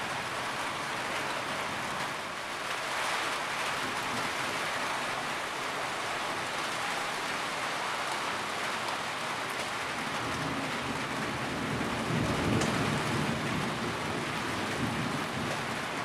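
Heavy rain falling steadily on a roof and streaming off its edge, an even hiss with a deeper, slightly louder swell about twelve seconds in.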